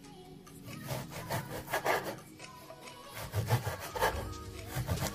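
Large kitchen knife sawing back and forth through a block of frozen meat on a wooden cutting board, in repeated strokes that come in short runs.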